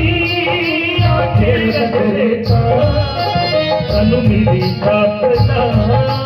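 Live devotional Punjabi shabd singing into microphones and over loudspeakers, with a hand drum beating a steady rhythm underneath.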